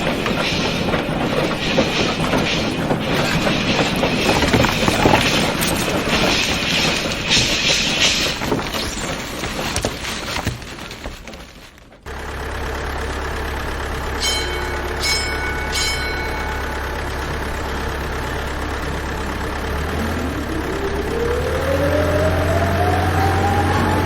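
Heavy industrial clattering and clanking from colliery machinery, fading away about halfway. A steady low machine hum then starts abruptly, three short high beeps sound, and near the end a motor whine rises steadily in pitch.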